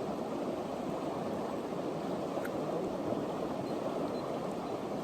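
Creek water running steadily over rocks, an even rushing that does not change.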